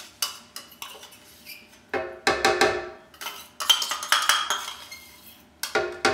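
Metal spoon scraping and knocking thick almond butter out of a metal measuring cup, giving several runs of sharp, ringing clinks.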